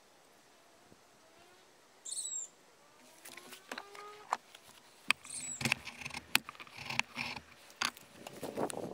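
Kindling fire catching, crackling and popping irregularly, the pops growing denser through the second half. A bird chirps briefly about two seconds in.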